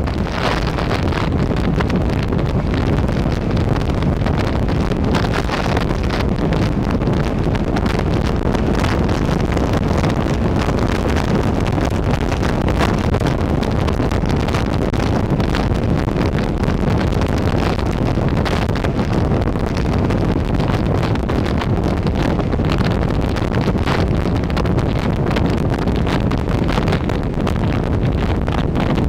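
Steady wind rush on the microphone of a camera on a moving scooter at road speed, with no clear engine note above it.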